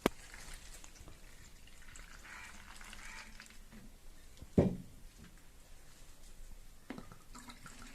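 Palm toddy being poured and trickling into a container, with one loud knock about halfway through and a lighter knock near the end.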